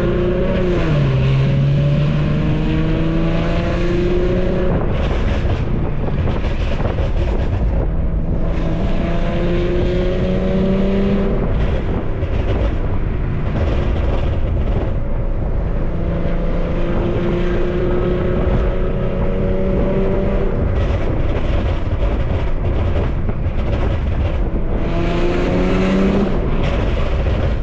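Infiniti Q50's 3.7-litre V6 running through long tube headers and a 3-inch custom exhaust with the exhaust valves open, under way on the road. The engine note climbs in pitch and drops back four times, as under acceleration with upshifts.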